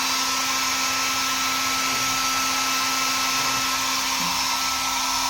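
Hand-held hair dryer running steadily, a constant blowing hiss with a steady hum, winding down at the very end as it is switched off.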